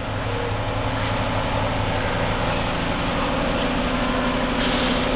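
Steady mechanical running noise with a low hum and a fast, even low rattle, from machinery or a motor.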